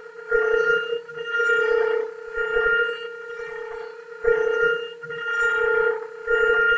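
CNC router spindle cutting a rotating wooden table-leg blank on a 4-axis lathe attachment. It gives a steady whine of fixed tones that swells into louder, rougher cutting stretches about every two seconds as the cutter bites.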